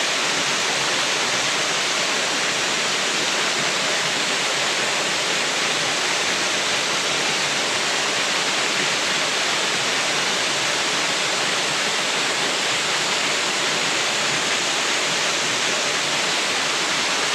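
Small waterfall in a mountain stream, water pouring and splashing in a steady, even rush.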